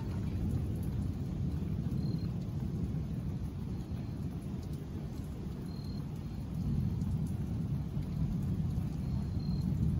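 Distant thunder rolling in a long low rumble with no sharp crack, swelling again about two-thirds of the way through and near the end.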